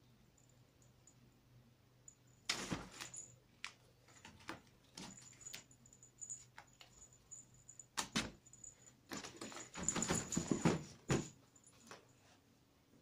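A cat scrambling at and clawing a pop-up fabric cat tunnel and its ribbon toy: intermittent bursts of rustling and scratching with scattered clicks, a sharp burst about two and a half seconds in, another around eight seconds, and the busiest flurry toward the end.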